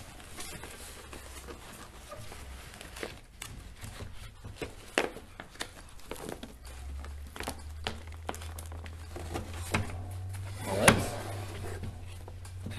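Softbox fabric rustling and being handled while its support rods are bent into the corners, with scattered light clicks and taps and one sharper click near the end.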